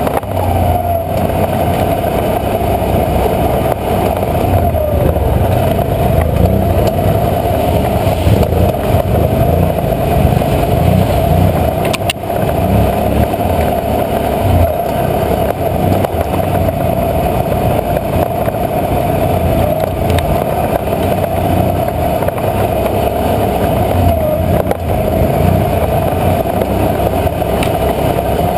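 ATV engine running steadily at trail-riding speed, with a steady whine over a low rumble that dips briefly in pitch as the throttle eases, about four to five seconds in and again near the end.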